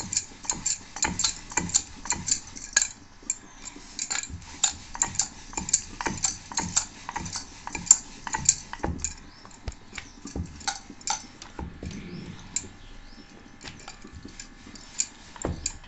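Wooden rolling pin rolling out paratha dough on a wooden chakla board, making repeated light wood-on-wood clicks and knocks as the pin and board shift. They come quickly and fairly evenly for the first few seconds, then more sparsely.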